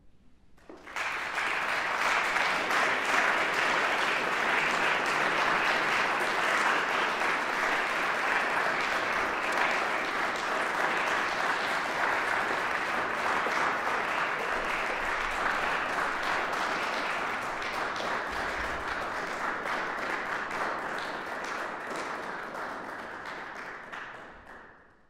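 Audience applauding, starting about a second in, holding steady and fading out near the end.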